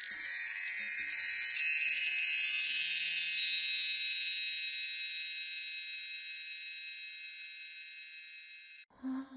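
High, shimmering chimes struck in a quick run in the first second, then ringing on and slowly fading for about eight seconds before cutting off near the end.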